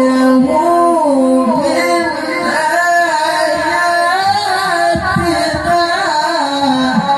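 A male Quran reciter's voice in melodic tilawah, drawing out long held notes in a high register with wavering ornamental turns and slow rises and falls in pitch. It is heard through a public-address system.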